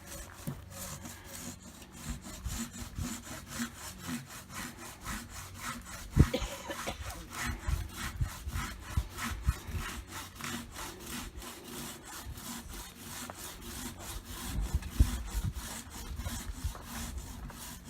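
Hand saw cutting through tree wood in steady, rapid back-and-forth strokes, with one sharper knock about six seconds in.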